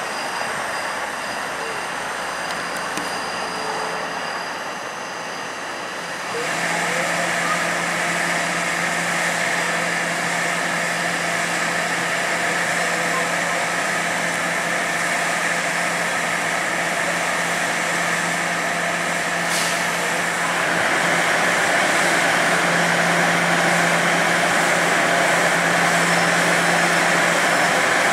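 Toronto Rocket subway train moving slowly through the yard's switches toward the listener: a steady electric running hum that steps up suddenly about six seconds in and again a little past twenty seconds.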